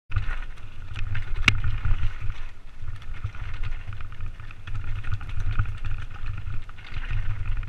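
Mondraker Vantage hardtail mountain bike descending a steep, rocky singletrack: tyres rolling over stones, with rattles and sharp knocks from the bike, the loudest about one and a half seconds in, over a constant wind rumble on the helmet camera's microphone.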